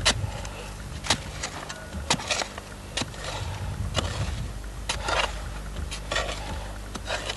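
A digging bar striking into hard sandy soil about once a second, each blow a sharp thud-and-scrape, over a steady low hum.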